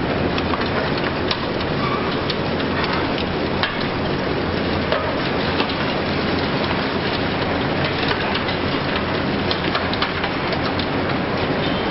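Continuous crackle and clatter of concrete rubble being broken and falling in a high-reach excavator demolition, full of small sharp cracks, over the steady low running of the big excavator.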